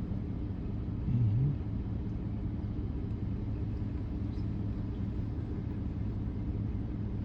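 Steady low rumble of a vehicle idling while stopped in traffic. About a second in there is a brief, louder low sound that dips and rises in pitch.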